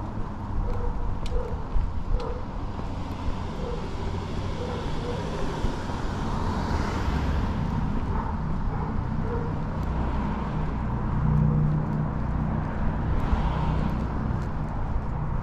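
Street traffic: a steady low rumble of car engines and tyres, with one car passing about seven seconds in and another shortly before the end.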